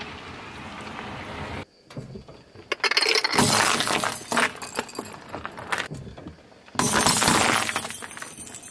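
Car tyre rolling over and crushing objects on asphalt: the squashed remains of a melon at first, then, after a sudden break, water-bead stress balls and small plastic items, in two long spells of loud cracking, crackling and clinking.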